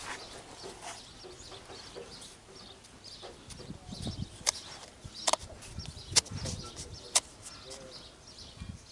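Metal parts and hand tools clinking while a truck air compressor is being reassembled: a few sharp clicks spaced about a second apart in the second half, over a faint low rumble of handling.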